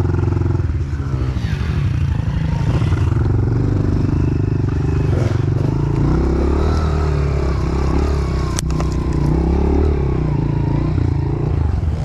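Honda CRF110F pit bike's small four-stroke single-cylinder engine running as the bike is ridden, its pitch rising and falling with the throttle. One sharp click past the middle.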